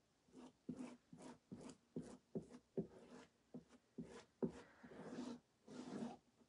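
Faint scratchy rubbing of fingertips and a cloth over a chalk-paste-covered silkscreen stencil on a burlap board: a quick run of short strokes, with a few longer wipes near the end.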